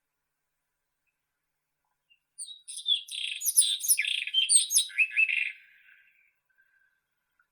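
White-throated robin singing one phrase of about three and a half seconds: a quick run of varied, sweeping notes that starts a couple of seconds in and trails off.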